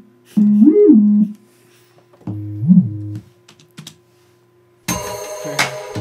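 Serum sine bass played in short phrases with portamento: each note slides smoothly up to a higher note and back down. About five seconds in, a fuller mix of several synth parts starts playing along with the bass.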